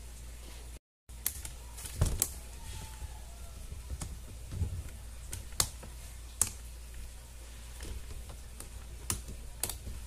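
Irregular plastic clicks and knocks from a Britânia Turbo 40 fan's front grille being handled, fitted over the blade and pressed into the rear grille's rim to lock it.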